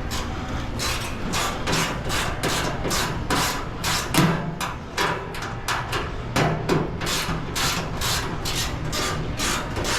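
Hand ratchet wrench worked in quick strokes, a rasping click about three times a second, running bolts down on a deep-fryer assembly.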